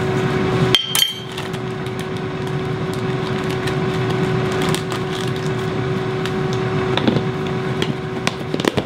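A metal measuring cup knocks against the rim of a stainless steel mixing bowl about a second in, giving a short metallic ring, while dry ingredients are tipped in. A few lighter clicks follow later, as the cup is set down on a stone countertop. A steady mechanical hum runs underneath throughout.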